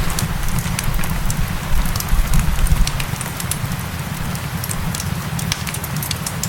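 Wood fire crackling with scattered sharp pops, over a steady hiss of rain. A low rumble underneath swells for about a second, around two seconds in.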